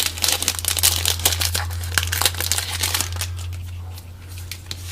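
Crinkling and tearing of a trading card pack's foil wrapper as it is opened and handled, with dense crackles for about three seconds that thin out and quieten after. A steady low hum sits underneath.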